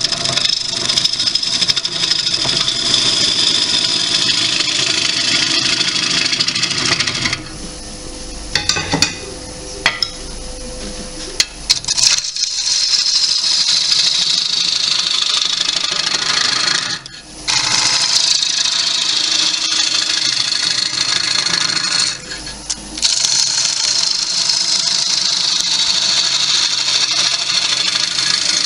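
A turning tool cuts into a wet cherry-wood bowl blank spinning on a lathe, making a loud, steady shearing hiss as it peels off long green-wood shavings. The cut stops three times where the tool leaves the wood, and then only the lathe's steady running hum is heard.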